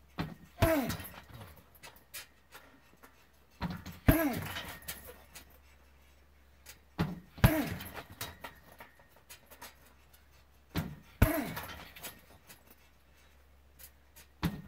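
Kicks landing on a hanging heavy punching bag, four in all about three and a half seconds apart, each a sharp hit with a softer knock just before it and a short falling ring after it. Small clicks and rattles between the kicks.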